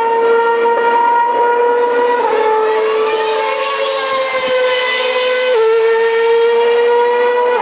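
Formula One car engines at full throttle: a high, steady scream whose pitch drops suddenly twice, about two and five and a half seconds in, as the car shifts up a gear. A second car's engine rises in pitch underneath it through the middle.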